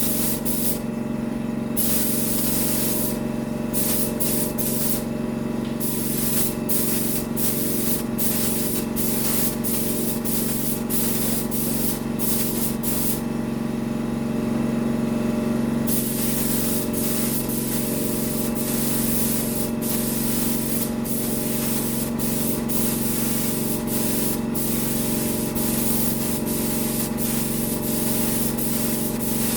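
Paint spray gun hissing as a coat of paint is sprayed on the Jeep, the hiss cutting out briefly several times as the trigger is let off between passes, over a steady motor hum.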